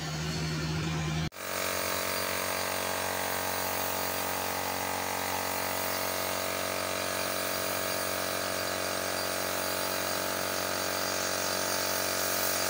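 Compressed-air paint spray gun hissing steadily over the even hum of its air compressor. Before it, a different low steady hum cuts off abruptly about a second in.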